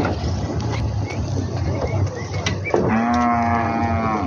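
A cow moos once, a long, steady low call starting about three seconds in, over a background of low pen and yard noise.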